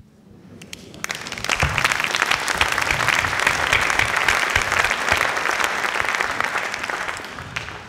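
Theatre audience applauding: the clapping starts about a second in, builds to a full round and dies away near the end.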